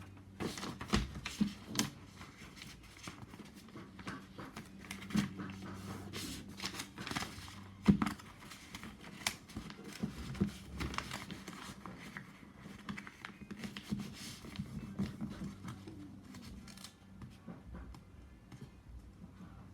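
A sheet of paper being folded in half and creased by hand: irregular rustles, crinkles and small snaps, with one sharper crack about eight seconds in.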